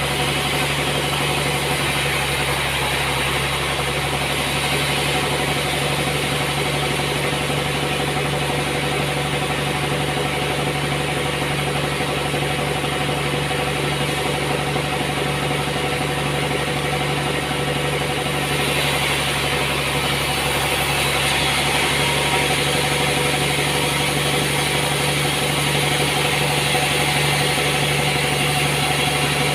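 Sawmill machinery running steadily with an engine-like hum. About two-thirds of the way through, a hiss in the upper range grows a little louder.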